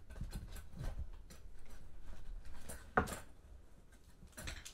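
Rummaging in a desk drawer: scattered knocks and rustles, with one sharp clack about three seconds in and another near the end.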